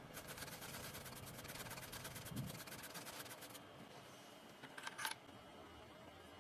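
Faint, rapid ticking from a CNC key cutting machine at work, about ten ticks a second, which stops a little past halfway; a few faint clicks follow near the end.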